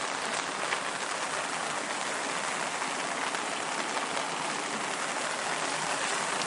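Steady rushing hiss of the flood-swollen river running up to the bridge deck, mixed with heavy rain falling.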